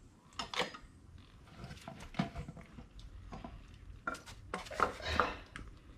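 Scattered metallic clinks and knocks as a scooter's front wheel and its metal parts are handled and worked into place, with a small cluster of them near the end.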